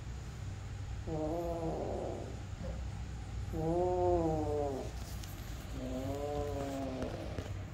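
Kitten growl-yowling over a freshly caught gecko: three drawn-out, moaning yowls about a second each, spaced a couple of seconds apart, over a low continuous growl. The typical warning a cat gives while guarding prey in its mouth.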